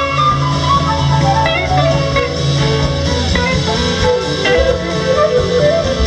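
Live blues-rock band playing, with an electric guitar lead over two drum kits and the rest of the band.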